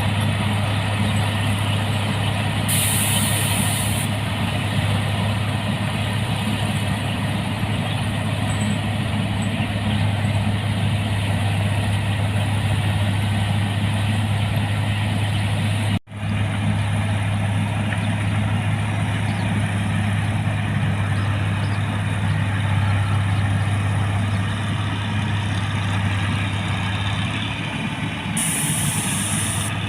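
Rice combine harvester's diesel engine running steadily with a deep, constant hum, with a short hiss twice, about 3 seconds in and near the end, and a momentary break about halfway through.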